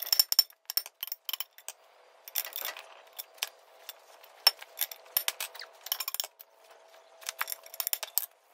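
Irregular sharp metallic clinks and taps: a sledgehammer tapping a steel tube used as a drift to knock a loosened pin out of its bush, with loose steel pins clinking against each other.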